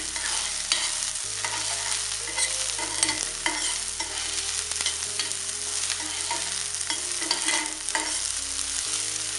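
Chopped onions sizzling in hot coconut oil with mustard seeds and cumin, stirred in the pan, with frequent short scrapes and taps of the spoon against the pan.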